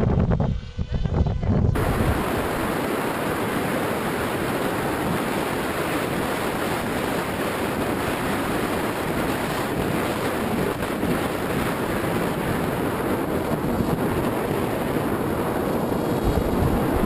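Steady rushing wind on the microphone of a GoPro mounted on an Easy Star II RC plane in flight, from airflow over the plane. It starts suddenly about two seconds in, after a short stretch of gusty wind buffeting a microphone on the ground.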